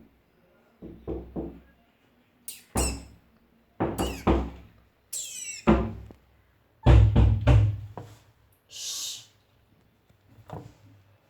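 A series of irregular knocks and thuds on a washing machine's drum and door, some ringing briefly, with the loudest cluster of hits about seven seconds in. A short hissing noise follows about nine seconds in.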